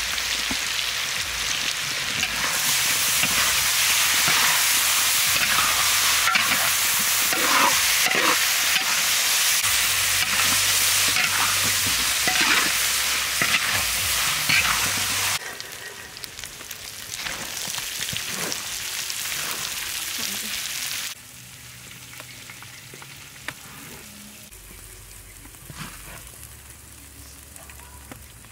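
Food sizzling as it fries in a hot pan, stirred with a utensil that clicks and scrapes against the pan. The sizzle drops abruptly about halfway through and again near three-quarters of the way, then goes on more quietly.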